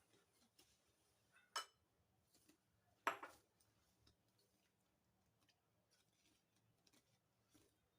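Mostly quiet, with faint scattered ticks and two short knocks about a second and a half apart, the second the louder.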